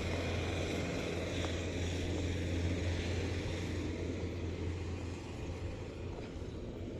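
A distant engine running with a steady low drone, which fades about five seconds in.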